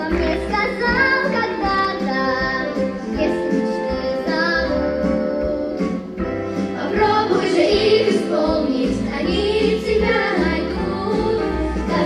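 A girl singing into a microphone over backing music with a pulsing bass beat, a song from a children's stage musical.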